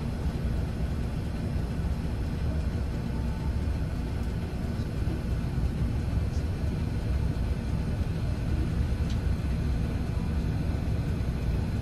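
Steady engine and road rumble inside the cabin of an intercity coach bus on the move.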